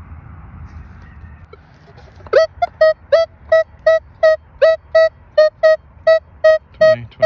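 Metal detector (Minelab Equinox) beeping over a buried target: short electronic tones of one mid pitch repeating about three times a second as the coil is wiggled over it, starting about two seconds in. The target reads 20–21 and is taken for another Lincoln Memorial penny.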